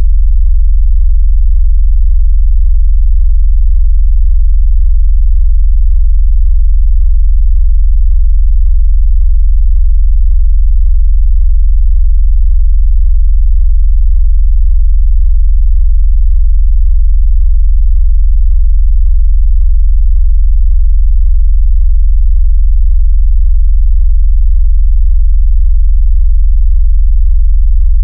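Synthesized sub-bass sine tone: a loud, steady, very deep hum with no change in pitch. It is made to shake a phone's speaker hard, as a vibration effect, a bass test, or a way to drive water out of the speaker.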